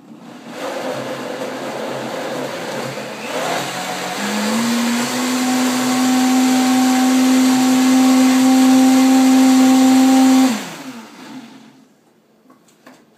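Countertop blender blending a cauliflower and roasted red pepper dip. It starts about half a second in and steps up in speed around four seconds in, then runs at full speed with a steady whine. Near the end it is switched off and winds down.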